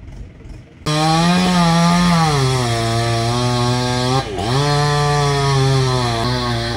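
Chainsaw engine running at high revs, coming in suddenly about a second in. Its pitch falls and then holds steady, dipping sharply twice.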